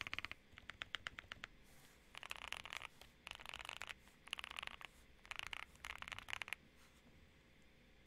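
Typing on a QK65 mechanical keyboard with Boba U4T tactile switches in a POM plate and Drop DCX keycaps, with the marbly sound the uploader describes: a few single keystrokes, then five quick runs of rapid keystrokes with short pauses between, stopping about six and a half seconds in.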